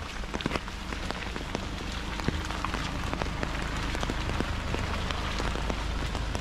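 Steady rain falling, a constant hiss with many individual drops ticking sharply and irregularly. The rain is heavy.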